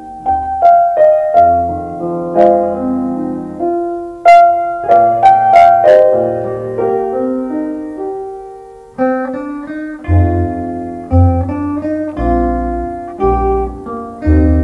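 Instrumental break of a 1960s Latvian pop song: piano playing chords and runs with low notes underneath, no singing.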